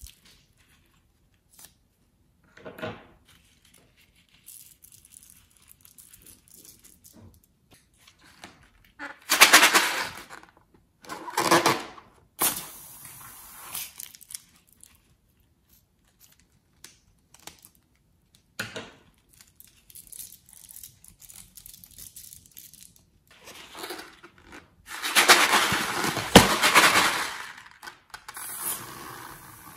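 Close-up handling of slime-filled rubber balloons being cut open with scissors, heard as scraping and rustling noise. There are loud bursts about ten seconds in and again just after, and a longer one near the end, with quieter small rustles and clicks in between.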